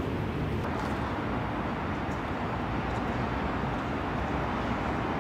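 Steady city ambience of distant road traffic, an even, mostly low noise.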